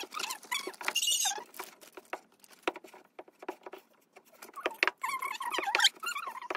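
Hand kneading a wet flour-and-water dough in a metal bowl: irregular sticky pats and squelches, fingers clicking against the bowl, with brief squeaks.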